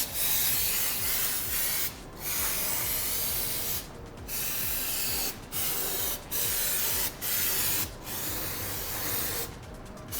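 A pressurised spray hissing in about eight bursts, each from half a second to two seconds long with short breaks between, used to clean old silicone off the VR6 engine's sealing surfaces.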